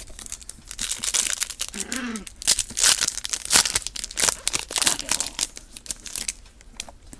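Plastic wrapper of a Topps trading card pack being torn open and crinkled, a rapid series of crackling rustles that dies away about a second before the end.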